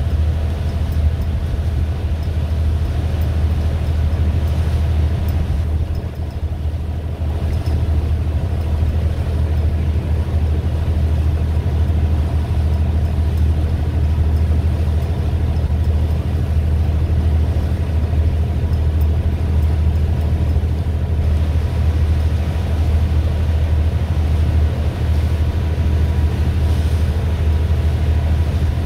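A boat's engine running with a steady, low drone, over a haze of wind and water noise.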